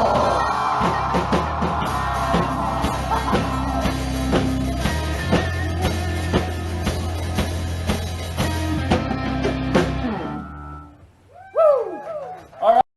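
Live hard rock band playing with drum kit and electric guitars, the drums hitting steadily over a sustained low note; the music dies away about ten seconds in. Near the end come a couple of short voice-like yells, then the sound cuts off suddenly.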